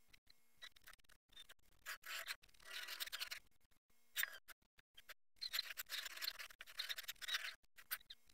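Utility knife blade cutting and scraping through styrofoam in several runs of strokes with short pauses between them, the longest run in the second half.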